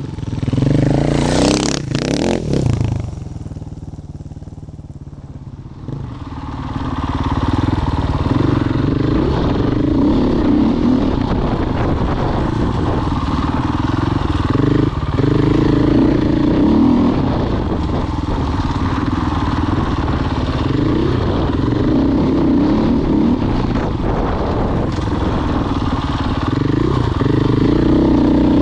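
Husqvarna FE 501's single-cylinder four-stroke engine revving hard as the bike passes close to the ground, with gravel spraying and clattering in the first few seconds. After about six seconds, the engine is heard from on board the bike, swelling and easing with the throttle in repeated cycles every few seconds.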